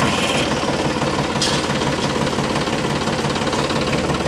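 Steady engine running sound like a tractor engine at idle, even throughout with no revving. It runs on unchanged across a cut in the picture, so it is a dubbed engine sound effect rather than the toy's own motor.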